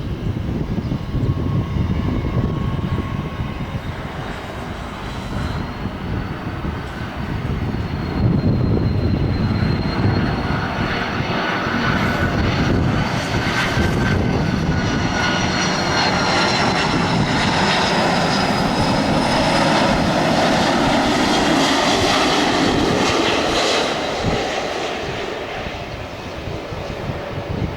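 Airbus A330 airliner's jet engines on approach to land, a high whine over a low rumble that swells as the plane passes close by, then dies down near the end.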